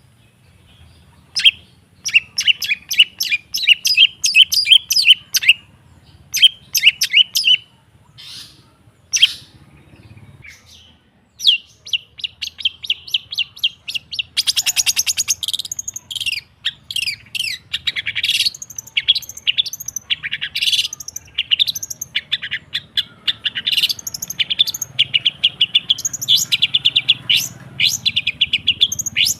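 Long-tailed shrike singing: rapid chattering trills of sharp high notes. Short bursts with pauses at first, then near-continuous fast chatter from about twelve seconds in, over a faint steady low hum.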